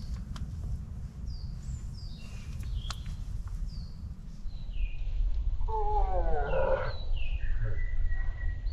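Woodland birds chirping over and over with short falling notes, over a low rumble. About six seconds in, distant voices of passers-by rise to a louder wavering call.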